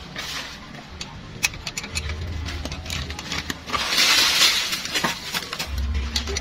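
Small metal clicks and clinks of a wrench working the rocker-arm adjuster locknut on a motorcycle's cylinder head while the valve tappet clearance is set, with a brief rustling burst about four seconds in.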